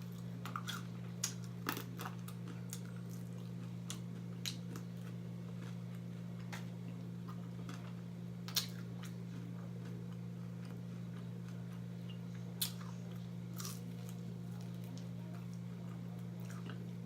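Close-up eating sounds of a person chewing and biting fried food: wet chewing with scattered sharp crunches and smacks, about a dozen of them. A steady low hum runs underneath.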